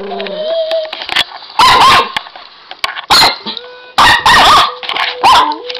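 A young dog barking and yipping at a robotic toy dog in several loud short bursts. Between the barks the toy gives off steady electronic tones and beeps.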